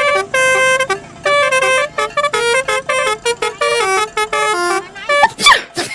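Basuri telolet musical bus horn playing a quick tune of short notes that jump up and down in pitch. Near the end a brief sliding tone cuts across it and is the loudest moment.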